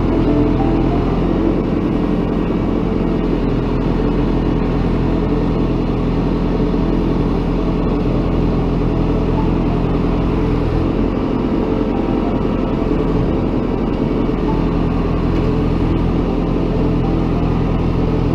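Excavator's diesel engine running steadily under working load.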